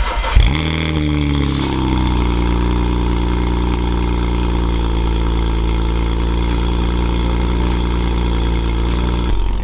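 BMW 135i's turbocharged straight-six cold-starting after a week parked, heard at the exhaust tips through catless downpipes. The starter cranks briefly, the engine catches with a rev flare that falls away over the first second or two, and it settles into a steady cold idle.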